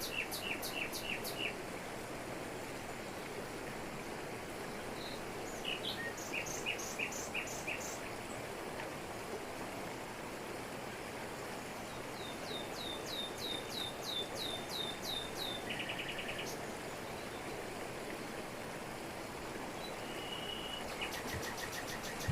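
Waterfall in tropical forest, a steady rush of falling water, with birds calling over it: several bouts of short notes repeated in quick series, one bout of falling notes lasting a few seconds, and a brief fast trill.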